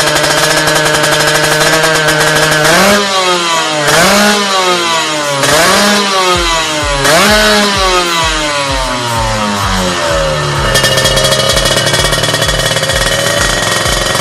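Motorcycle engine running through an aftermarket racing exhaust (knalpot racing): idling, then revved in four or five quick blips that rise and fall, settling back to a steady idle about ten seconds in.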